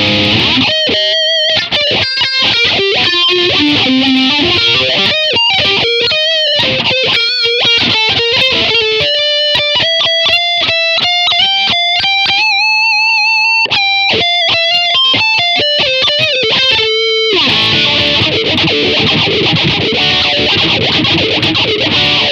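Distorted electric guitar recorded direct from a multi-effects unit into an audio interface. It plays a lead line of single notes with bends and vibrato, including a long held, wavering note near the middle. In the last five seconds it switches to dense, heavy distorted riffing.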